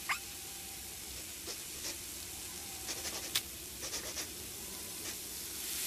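Cartoon sound effects: a soft steady hiss with a scatter of short clicks and small squeaks, several bunched about three to four seconds in.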